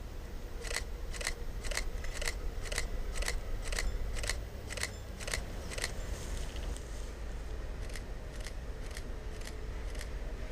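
Sharp, evenly spaced metallic ticks, about two a second, pausing briefly about two-thirds of the way through and then resuming, over a low steady hum.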